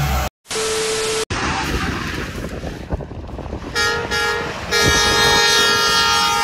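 A short honk, then a long steady blast of a semi truck's horn starting about four seconds in, over outdoor vehicle noise. Just before this, a car's engine runs briefly and cuts off abruptly.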